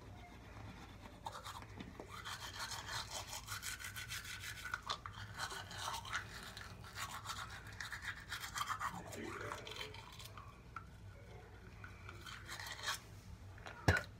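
Teeth being brushed with a toothbrush: rapid scrubbing strokes over a low steady hum, easing off about ten seconds in, with one sharp click just before the end.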